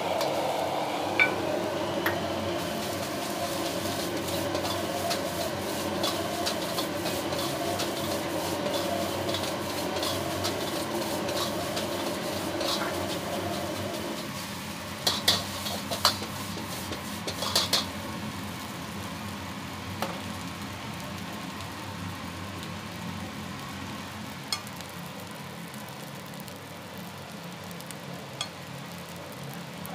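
Egg and rice sizzling in a carbon-steel wok while a metal ladle stirs and scrapes it. The sizzle is louder over the first half and then settles lower, with a quick run of sharp ladle knocks against the wok just after the middle and a few single clinks later.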